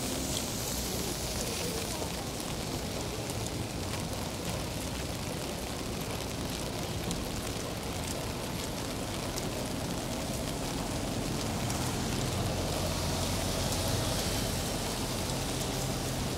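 Steady rain falling on a city street, with many fine drop ticks. A low traffic hum underneath grows a little louder near the end.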